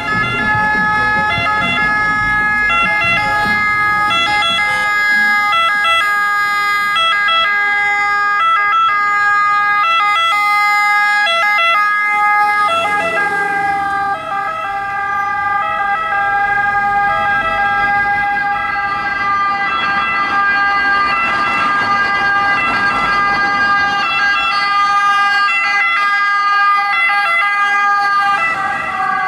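Italian ambulance two-tone siren sounding continuously, its two notes alternating over engine and road noise, with a brief break about halfway through.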